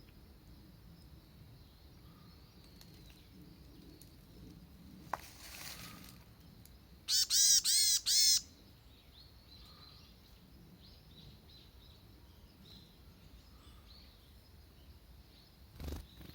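A small bird calling: four loud chirps in quick succession about seven seconds in, each an arching note. Fainter high chirps follow, and there is a soft thump near the end.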